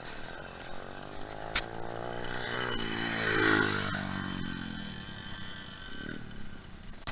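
Small motorbike engine passing close by. It grows louder to a peak about three and a half seconds in, then its pitch drops as it moves away. There is a sharp click about one and a half seconds in.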